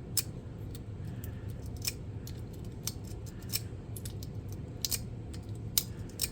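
Sharp, irregular metallic clicks of a lock pick working the pin stack of a Master Lock 146D pin-tumbler padlock, over a steady low hum. The picking does not open the lock.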